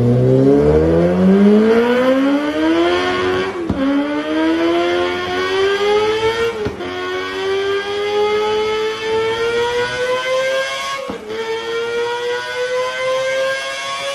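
Car engine accelerating hard, its pitch climbing steadily and briefly dipping at each upshift, three times, as it pulls up through the gears.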